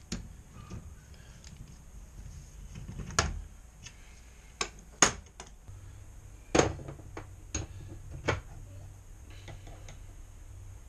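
Small metal parts and hand tools knocked and clicked together at a metal workbench: scattered sharp clicks and knocks, a few seconds apart. A faint low hum comes in about halfway through.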